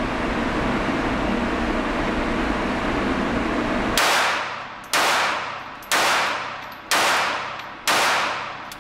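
A steady rushing noise, then five shots from a Diamondback DB380 .380 pocket pistol, about one a second, each followed by a short echo off the walls of an indoor range.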